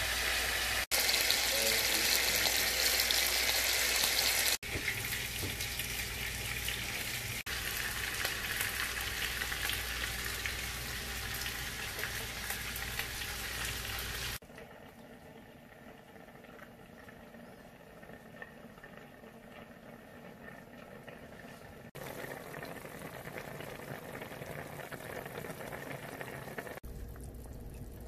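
Seasoned chicken frying in oil in a pot, a loud steady sizzle that cuts off suddenly about halfway through. After a quieter stretch, a pot of chicken soup boils with a softer, even bubbling near the end.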